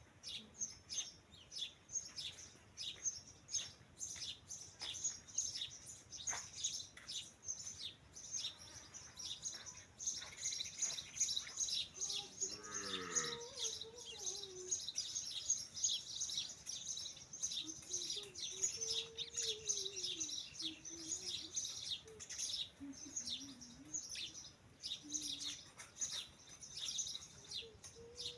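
Many small birds chirping continuously in a dense, rapid chatter. A few lower, wavering calls or voices break in around the middle.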